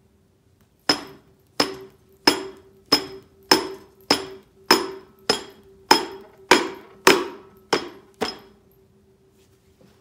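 About thirteen evenly spaced hammer blows, roughly one every 0.6 seconds, each with a short metallic ring, striking a Honda ATC 200x engine to break loose a part stuck fast with RTV sealant. The blows stop a little before the end.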